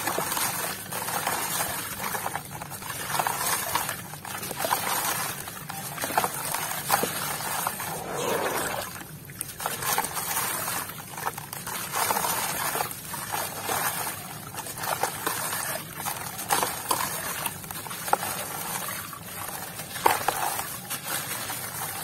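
Dry, grainy red dirt crumbling in the hands and falling into water in a plastic tub: a gritty, crunchy crackle with small splashes and trickles. Near the end, wet mud is squished and swirled in the water.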